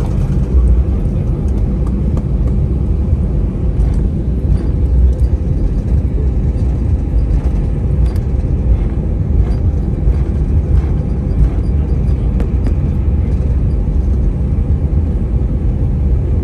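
Steady low rumble in the cabin of an Airbus A321 taxiing after landing, with faint scattered clicks and rattles.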